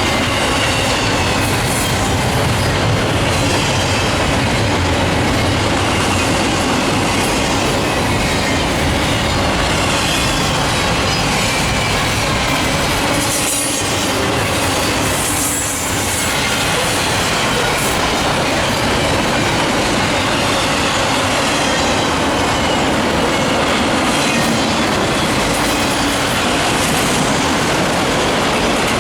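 A freight train's cars rolling steadily past, wheels running on the rails with a clattering rumble and a faint wheel squeal. The level dips briefly twice near the middle.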